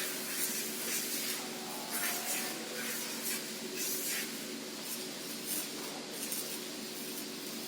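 CNC lathe machining a part: a steady hiss with a faint, even hum underneath and scattered light ticks.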